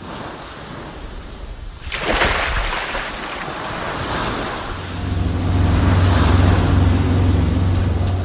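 Ocean surf washing in, with a big wave surging about two seconds in; from about five seconds a steady low hum joins under the surf.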